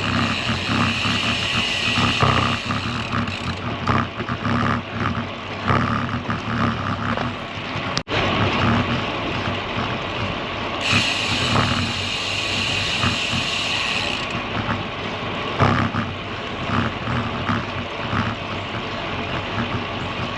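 Wind buffeting the camera microphone while riding a road bicycle, a rushing noise that gusts up and down.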